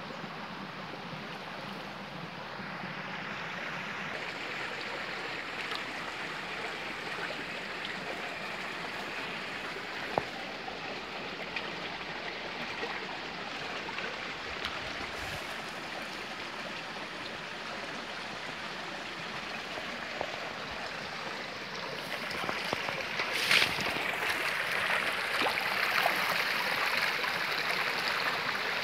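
Shallow stream trickling and gurgling over a sandy bed, a steady rush of water that grows louder about three quarters of the way through. A few short knocks sound over it.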